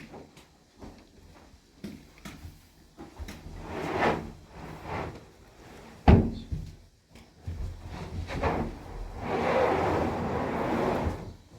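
Handling and knocking sounds from manual work: scattered light knocks, one heavy thump about six seconds in, and a steady rubbing noise lasting about two seconds near the end.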